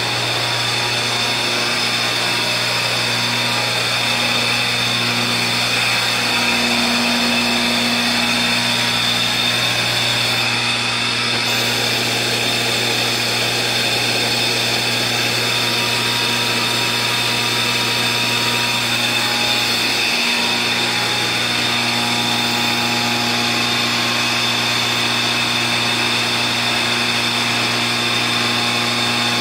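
An electric air blower running steadily for tank aeration: a constant motor hum with a high whine above it.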